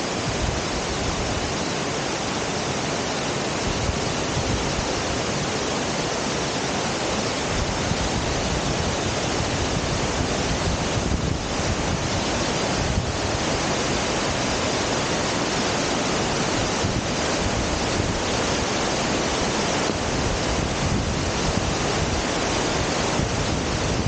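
Steady rushing of a waterfall and the cascading mountain stream tumbling over rocks, an even, unbroken noise.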